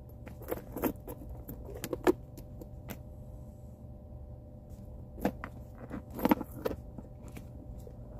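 Metal chain strap and clasp hardware of a small handbag clinking and rattling as the bag is handled, in two spells of light clicks about three seconds apart, over a faint steady low hum inside a car's cabin.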